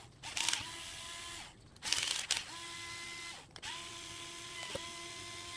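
Cordless drill/driver backing Phillips-head screws out of a hoverboard wheel hub, its motor whining in three short runs that wind down in pitch between them. Two louder, brief rattles come about half a second and two seconds in.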